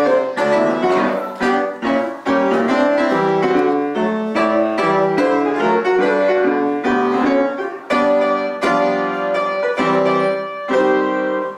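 Piano music: chords and melody notes played at a steady pace, each note struck with a clear attack and then fading, with short pauses between phrases about two seconds in and again near eight seconds.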